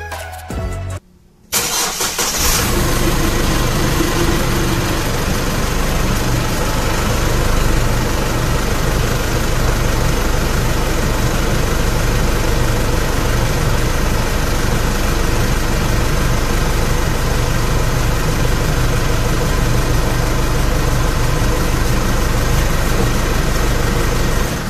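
Chevrolet Trailblazer's 2.8 Duramax four-cylinder turbo-diesel starts about a second and a half in, then idles steadily. It is running so the transmission pump pushes the old ATF out through the disconnected cooler line during the flush.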